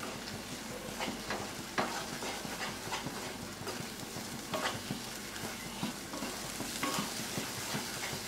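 Wooden spatula stirring and scraping thick semolina halwa in a non-stick kadai, with irregular knocks of the spatula against the pan over a sizzle of hot ghee. The mixture is thickening and the ghee starting to separate, the sign that the shiro is nearly done.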